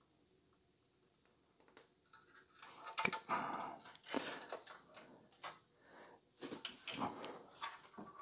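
Fan cables rustling and plastic connectors clicking as the two CPU-cooler fans' leads are handled and plugged together, a run of short, faint noises starting about two and a half seconds in.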